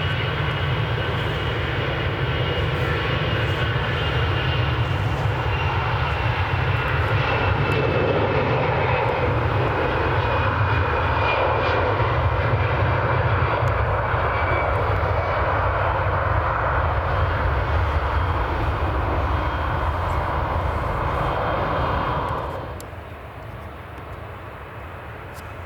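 Airbus A320 jet engines at take-off power on departure: a loud, steady jet roar with a high whine that slowly falls in pitch, dropping away sharply about 22 seconds in.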